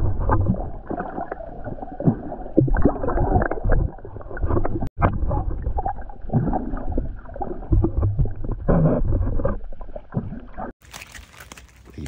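Sea water sloshing and gurgling around a swimmer in irregular, muffled surges. Near the end it gives way to clearer, fuller sound.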